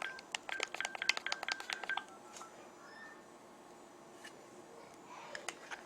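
Home telephone keypad being dialed: a quick run of button presses, each with a short beep, stopping about two seconds in.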